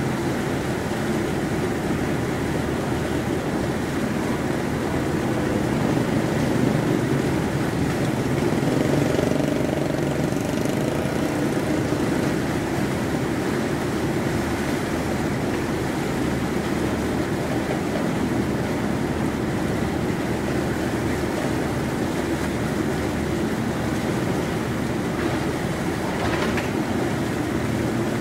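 Harbour tug's diesel engine running with a steady deep rumble as the tug works with its bow pressed against a container ship's hull.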